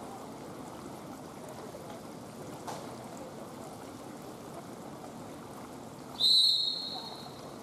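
Steady hiss of a large indoor pool hall. About six seconds in, a single high whistle tone sounds, holds steady for about a second, then fades.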